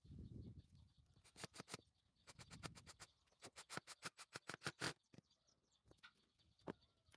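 Handling noise: quick runs of light clicks and taps, several a second, as wooden parts and a cordless drill's battery pack are handled on a worktable, with a short low rumble of handling at the start.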